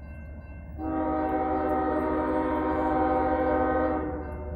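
CSX freight locomotive's air horn sounding one long blast of several notes at once, starting about a second in, held for about three seconds, then fading away.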